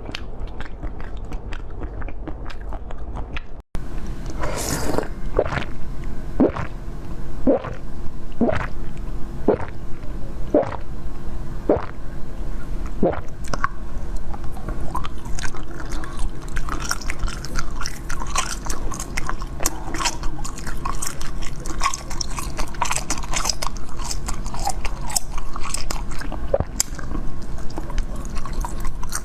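Eating sounds: bites and chewing. A brief cut about four seconds in, then sharp bite clicks about once a second, giving way to denser crunching and chewing.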